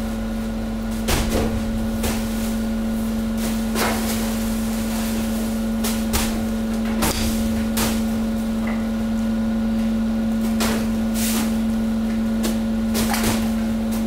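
Hydraulic waste press's power unit running with a steady hum, while sacks of industrial waste drop into the steel chamber, landing with about eight irregular thuds.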